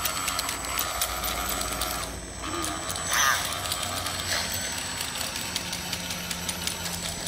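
Radio-controlled scale CAT D8 bulldozer with an aluminium build: its small motors whirr steadily, with a rapid ticking from the metal track links and gears on a tile floor. A brief warbling squeal comes about three seconds in.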